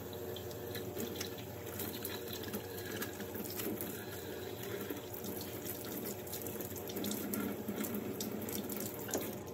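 Kitchen faucet running in a steady stream into a stainless steel sink while hands are rubbed and rinsed under it, water splashing off the hands.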